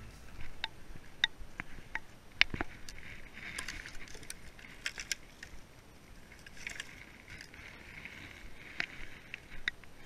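Rustling of brushwood and a forest floor underfoot, with scattered sharp snaps and cracks of dry twigs and sticks as someone moves about and handles cut branches.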